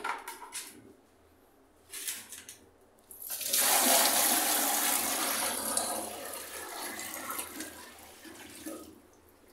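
A bucket of water poured into a newly installed ceramic toilet bowl, rushing and splashing down the drain as a bucket-flush test of the installation. The rush starts suddenly about three seconds in, is loudest at first and fades over the next several seconds.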